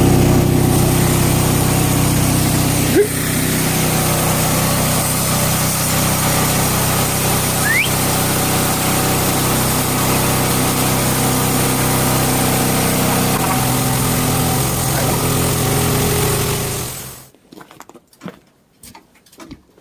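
Portable band sawmill's small gasoline engine running steadily, with a single knock about 3 seconds in. The engine is shut off about 17 seconds in.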